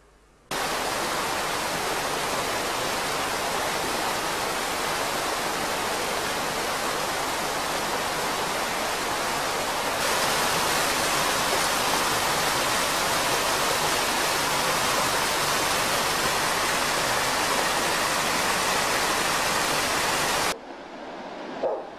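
Loud steady hiss like static or rushing water, with no pitch or rhythm. It starts abruptly about half a second in, gets slightly louder about halfway through, and cuts off abruptly near the end.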